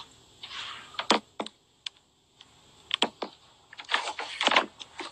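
Irregular clicks and short rustles of a phone being handled and moved close to its microphone.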